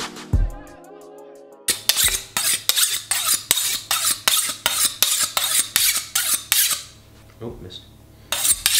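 A kitchen knife being honed on a steel: quick, even metallic scraping strokes, about four a second, a short pause, then more strokes near the end. For the first second and a half, music with a kick-drum beat plays before the honing starts.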